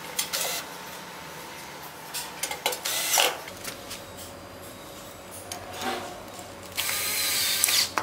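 Cordless drill-driver running in short bursts, driving screws into metal lock parts; the longest run, about a second, comes near the end.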